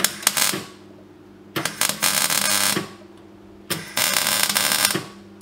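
Electric arc welder crackling and sputtering in three short bursts as tack welds are laid on a steel exhaust tailpipe, over a steady low hum.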